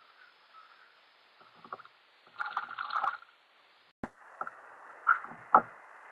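Muffled knocks, clatter and water sounds of someone handling things in a kayak, heard through an action camera's waterproof case. A burst of clattering comes about two and a half seconds in, and sharp single knocks follow in the second half.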